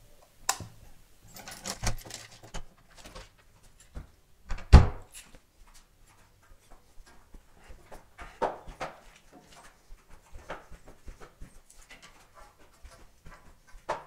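Clatter and knocks of leaving a flat, with one heavy thud about five seconds in, then irregular footsteps of slide sandals slapping on stone stairs going down a stairwell.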